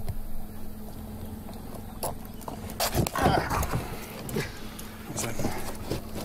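Alligator gar thrashing on a boat deck while a hook is worked out of its jaws: a few sharp knocks and thumps over a steady low hum, with a brief human exclamation about three seconds in.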